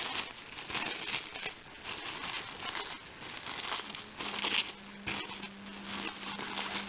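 Packaging rustling and crinkling in a run of short, irregular bursts as a boxed doll is unwrapped by hand. A faint steady hum runs underneath in parts.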